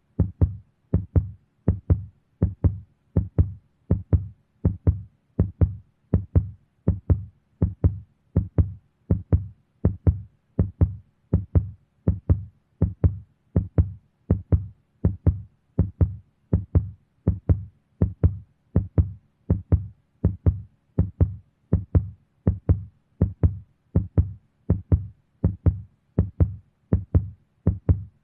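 Heartbeat sound effect: steady double thumps, the lub-dub of a heart, repeating evenly a little faster than once a second.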